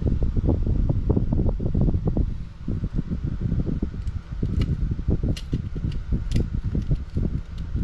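Handling noise of hands working on small RC buggy chassis parts close to the microphone: a dense, irregular run of low rustles and bumps, with a few sharp light clicks of small parts a little past halfway.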